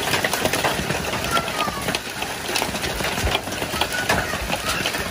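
Heavy hailstorm: a dense, unbroken clatter of many hailstones striking, over the hiss of heavy rain.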